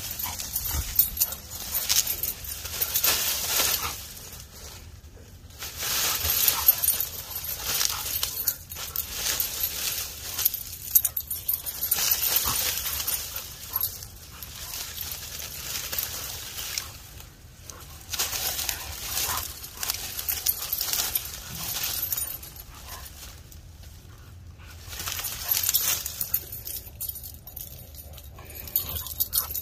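Husky-type dogs playing in a pile of cut palm leaves: the leaves rustle in uneven bursts as the dogs push and dig through them, with now and then a dog vocalising.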